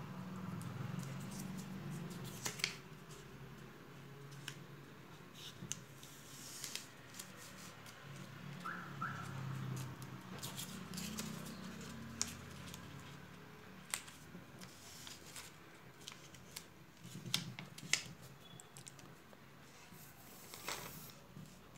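Sheets of paper rustling and crinkling as they are handled, folded and pressed down, with scattered sharp clicks and taps.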